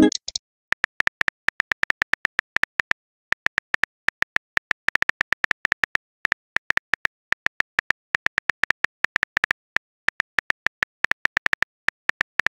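Simulated keyboard typing clicks from the Texting Story chat app: a fast run of short, identical clicks, about seven a second, in bursts with brief pauses as a message is typed out letter by letter.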